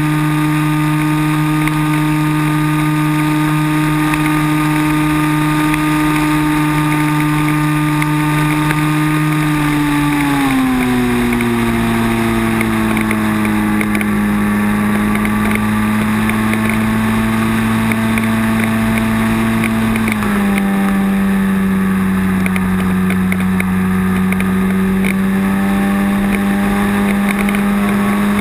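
Multiplex Cularis electric sailplane's motor and propeller running steadily, picked up by the onboard camera. The pitch drops to a lower, steady note about ten seconds in, drops again about twenty seconds in, and rises slightly near the end as the motor speed changes.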